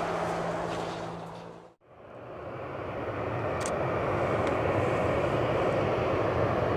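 Boeing 737 jet engine noise: a steady drone with a low steady tone fades out about two seconds in, then a steady engine drone fades back in and holds.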